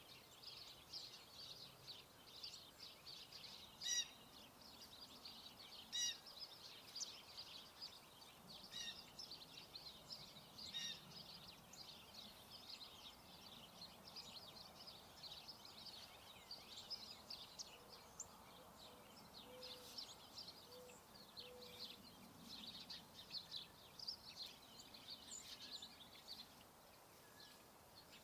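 Faint background of small birds chirping and twittering continuously, with a few short sharp clicks, the loudest about four and six seconds in.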